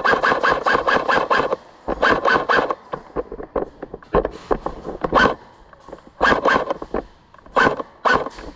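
Airsoft guns firing in rapid full-auto bursts: a long burst at the start, then several shorter bursts with short pauses between.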